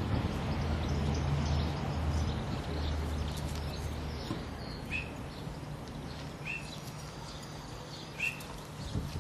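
Outdoor background noise with a low, steady hum through the first few seconds, then three short, high chirps from a small bird spread across the second half.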